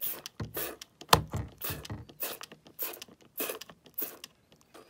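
Trigger spray bottle of OxiClean Max Force liquid stain remover spritzing onto a wet cap: about eight quick hissing squirts, roughly two a second, with a sharper click on one stroke about a second in.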